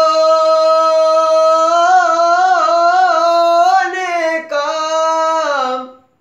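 A young man singing a manqabat unaccompanied, drawing out one long held note with ornamented wavers in pitch, then a shorter phrase that fades out near the end.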